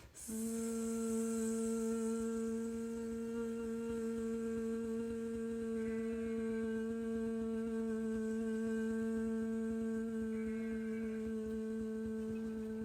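A woman humming one long, steady low note as a qigong 'healing vibrations' sound exercise.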